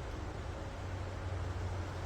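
Steady wind moving through trees with leaves rustling, over a constant low rumble.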